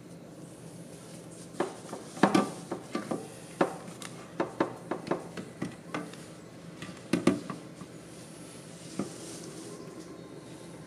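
Handling noise from two metal-cased Newsmy car stereo head units: a string of clicks and light knocks as they are turned in the hands and bumped against each other, with a couple of louder knocks among them and a last one a little later.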